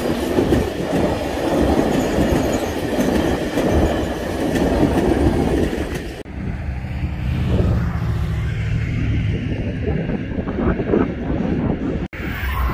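Kansas City Southern passenger cars rolling past at a grade crossing, with a dense rumble of wheels clicking and rattling over the rails. About six seconds in, the last car clears and the sound drops abruptly to a lower, steadier rumble as the train moves away.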